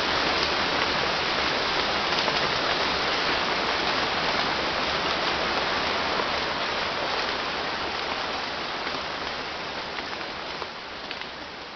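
Steady hiss of falling rain, fading out over the last few seconds.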